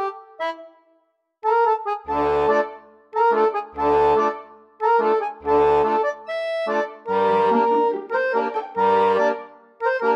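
Background accordion music: a bouncy tune of short chords over regular bass notes, after a brief pause about a second in.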